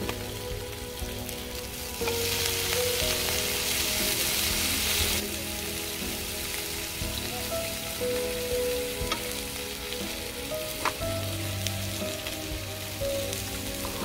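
Pork belly and mushrooms frying in a pan on a portable butane stove, with a steady sizzle. The sizzle grows louder from about two to five seconds in as the food is stirred and turned. There are a couple of sharp clicks of utensils on the pan later on.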